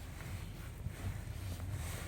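Low, steady rumble of a Kia Ceed SW.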